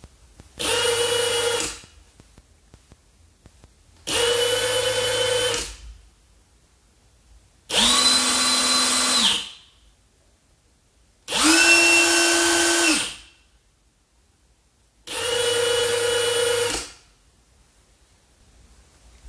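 RIDGID 18-volt brushless half-inch high-impact wrench run in five short bursts of about a second and a half each, a few seconds apart. The third and fourth bursts are lower in pitch than the rest.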